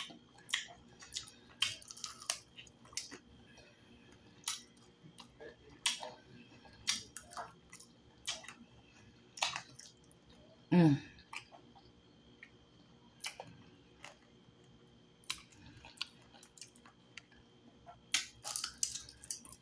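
Mouth sounds of someone eating fried turtle meat off the bone: scattered wet smacks and clicks of chewing and lips at an uneven pace, with one brief vocal sound about eleven seconds in.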